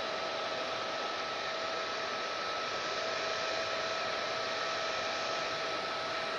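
Hair dryer running continuously: a steady rush of blown air with a constant motor whine.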